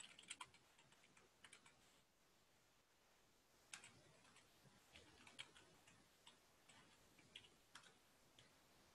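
Faint keystrokes on a computer keyboard: short runs of taps with pauses between.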